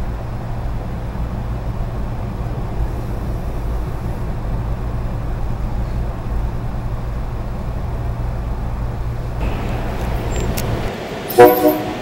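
Steady low rumble of a SEPTA train in motion, heard from on board. Near the end it cuts to a short, loud blast of a SEPTA Silverliner's multi-tone air horn, two quick peaks in about half a second.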